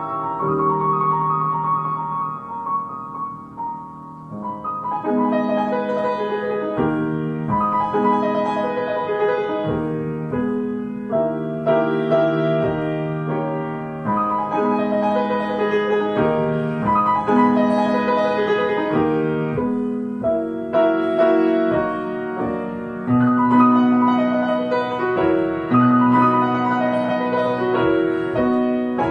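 Grand piano played solo: slow, held chords under a melody, sparser and a little quieter for the first few seconds, then fuller from about five seconds in.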